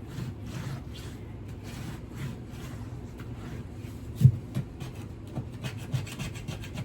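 Floor adhesive, softened with vinegar, water and heat, being scraped off a wooden floor by hand in repeated scraping strokes. A sharp knock about four seconds in, with a few lighter knocks after.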